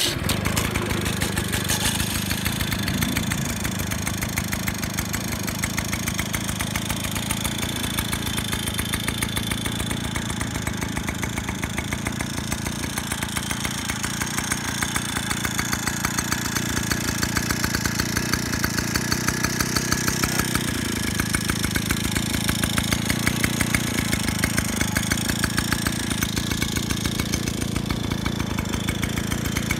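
Motobécane Mobylette AV89 moped's small single-cylinder two-stroke engine idling steadily with a rapid, even beat. It comes in suddenly right at the start.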